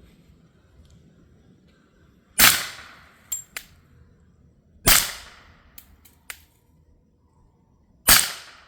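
Three suppressed 9mm shots from a CZ Scorpion Evo 3 S1 carbine fitted with a Dead Air Mojave 9 suppressor, firing Hornady subsonic rounds through a wet suppressor. The shots come a few seconds apart, each a sharp crack that dies away quickly, with a few faint clicks after the first two.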